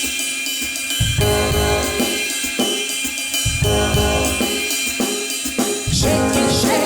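A band playing a song with a drum kit keeping the beat on hi-hat, cymbals, snare and bass drum under sustained instruments; a singing voice comes in near the end.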